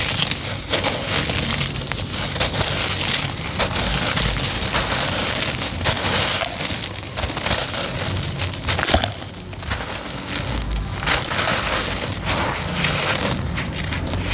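Homemade cement crumbling as it is crushed: a dense, continuous gritty crunching made of many small sharp cracks.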